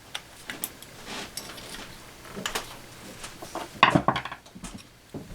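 Scattered light clicks and knocks of a metal saw blade and sharpening tools being handled on a bench, with one louder knock about four seconds in.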